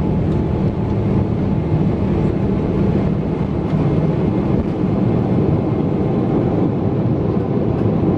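Boeing 777 takeoff heard inside the cabin over the wing: the engines at takeoff thrust and the steady low rumble of the takeoff roll as the aircraft rotates and lifts off.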